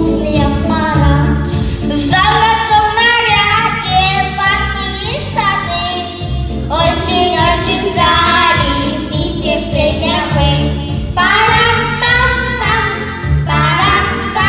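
A child singing a children's song about autumn over a recorded backing track with a steady bass line.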